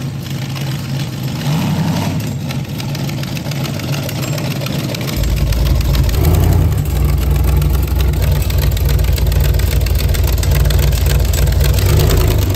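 A rat rod's big, blown engine running with a steady, deep exhaust note, growing louder and deeper about five seconds in.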